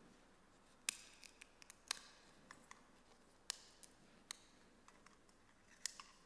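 Faint, scattered sharp clicks and light clinks of a metal chalice and altar vessels being handled, about half a dozen over a few seconds, the room otherwise near silent.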